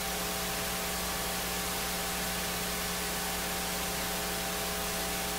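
Steady hiss with a low electrical hum, the background noise of the microphone and sound-system chain while no one speaks.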